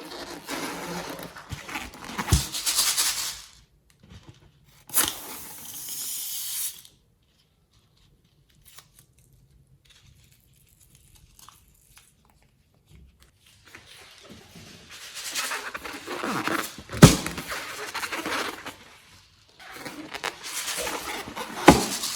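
Slime being stretched and squished by hand, giving crackly, tearing noises in four bursts with quiet gaps between, and a sharp loud snap about two-thirds of the way through and another near the end.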